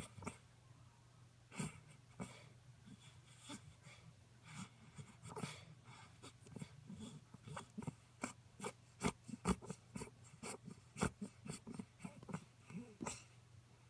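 Norfolk terrier snoring: short, irregular snorts and snuffles through the nose, coming faster in the second half, over a steady low hum.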